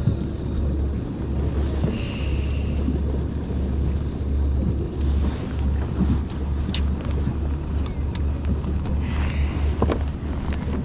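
Wind buffeting the microphone as a steady low rumble, with a few faint clicks as a hook is worked free of a walleye with pliers in a landing net.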